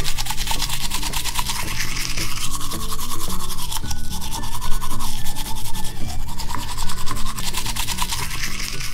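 Plastic toy toothbrush scrubbing back and forth over Play-Doh teeth in a toy dentist set: a rapid, continuous scratchy rubbing. Background music plays under it.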